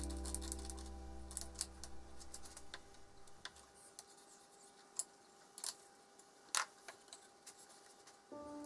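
Background music fading out, then a scatter of light clicks and knocks from wooden drill-press parts being handled and fitted, the loudest about five and six and a half seconds in. The music comes back near the end.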